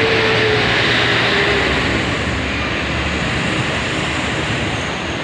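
Steady, loud engine and traffic noise as a coach bus drives past, with a faint tone in the first second or so that fades as the noise eases slightly.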